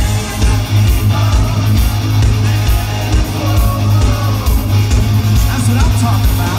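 Rock band playing live: loud electric guitars over bass and a steady kick-drum beat.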